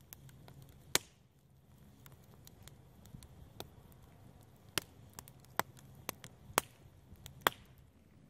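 Small campfire of sticks and twigs crackling, with sharp, irregular pops of burning wood, a few of them much louder than the rest.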